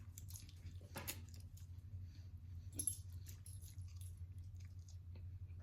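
Close-up mouth sounds of someone chewing a chicken nugget with ramen noodles: soft wet clicks and smacks, over a steady low hum.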